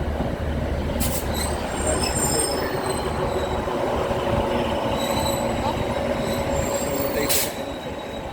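Passenger train running through the station with a steady rumble and a faint high wheel squeal. There are two brief hisses, about a second in and near the end.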